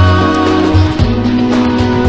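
Live pop music: a woman singing over a band with bass and drums, the drum hits coming in more plainly about halfway through.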